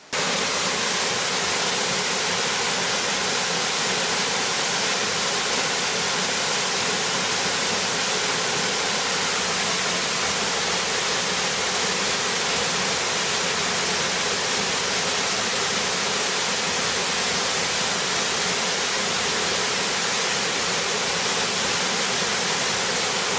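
Waterfall pouring over a rock ledge into a plunge pool: a steady, even rush of falling water.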